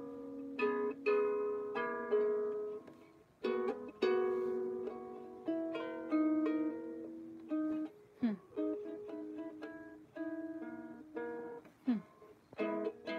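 Out-of-tune harp being plucked: slow single notes and chords that ring and fade, with a short downward swoop in pitch twice, about eight seconds in and near the end.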